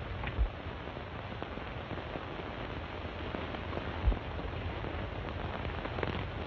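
Steady hiss and crackle of an old 1930s optical film soundtrack, with two short low thumps, the louder one about four seconds in.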